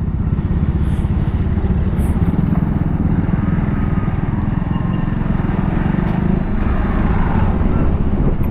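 Hero Xpulse 200 4V motorcycle being ridden at cruising speed, heard on board: its engine runs steadily under a dense low rumble of road noise.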